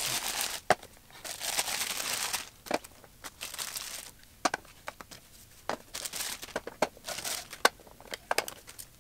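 Clear plastic packaging bags crinkling in several bursts as small plastic grooming attachments are unwrapped, with a few sharp clicks as the plastic parts are set into a plastic storage base.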